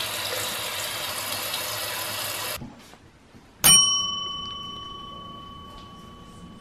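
Water running from a tap for about two and a half seconds, cutting off abruptly. Then a single sharp bell-like ding that rings on and slowly fades.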